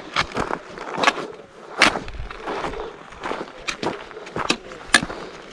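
Footsteps on a loose rocky scree trail, with trekking-pole tips striking the stones: irregular sharp clicks and scrapes, several a second.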